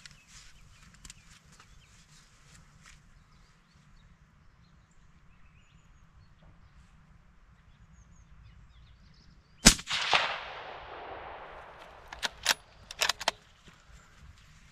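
A single shot from a scoped hunting rifle fitted with a sound moderator, about ten seconds in, its report trailing off in a fading echo over about two seconds. It is the shot that drops a fallow doe at about 150 yards. A quick run of sharp clicks follows a couple of seconds later.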